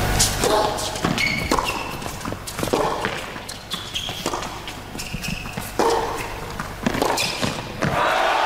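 Tennis rally on an indoor hard court: sharp racket strikes on the ball and ball bounces, irregularly spaced, with short high squeaks of shoes on the court and a player's brief grunts.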